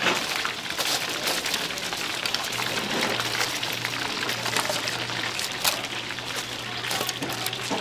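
Chicken deep-frying in hot oil: a dense crackling sizzle with many small pops. A steady low hum joins about two and a half seconds in and stops near the end.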